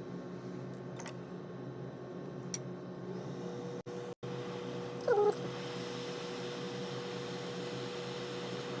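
A single short animal call, cat-like, about five seconds in, over a steady electrical hum; a steady tone joins the hum about three seconds in.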